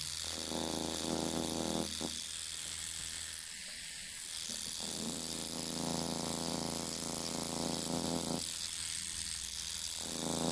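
A Thomas rotary tattoo machine buzzing in three spells, stopping and starting, over a steady low hum; it is set low for dotwork, so the needle strikes slowly.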